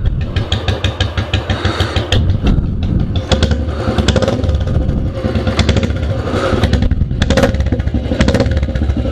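Royal Enfield Bullet motorcycle engine running and being revved, its exhaust thumping with repeated sharp cracks and pops.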